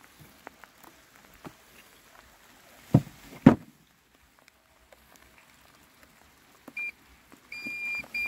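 Two heavy thumps about half a second apart as the Landxcape robotic mower's plastic body is turned over and set down on the grass. Near the end the mower's control panel gives a short high beep, then longer steady beeps.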